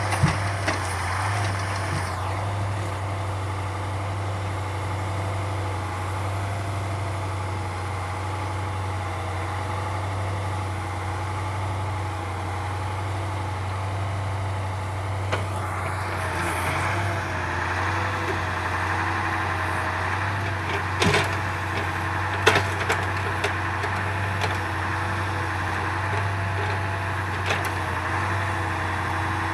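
Truck engine running steadily to drive an OMTL 70-02 hydraulic timber loader, with the hydraulic whine rising in pitch about halfway through as the crane works under load. A few sharp knocks of logs striking wood come near the start and about two-thirds of the way in.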